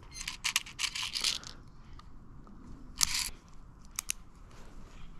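Handling noise from a small gold gas-powered airsoft derringer being reloaded by gloved hands: a quick run of small clicks and rattles in the first second and a half, a short scrape about three seconds in, and two sharp mechanical clicks about four seconds in.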